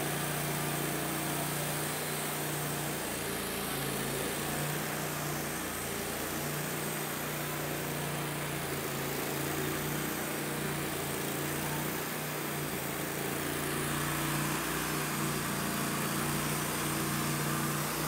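Wood-Mizer portable band sawmill running steadily, its band blade cutting a full-width board through a log. The blade is past the bark and meets more resistance in this full-width cut.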